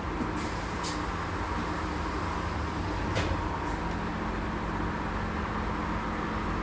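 Inside a bio-gas Scania N280UD double-decker bus: the engine and running gear hum steadily as the bus drives along. There are two short knocks or rattles, one about a second in and a sharper one about three seconds in.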